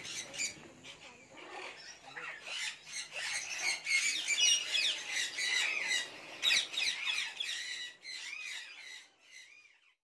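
Caged parrots squawking and chattering: many short, high calls overlapping, busiest in the middle, thinning out to a couple of rising-and-falling calls near the end.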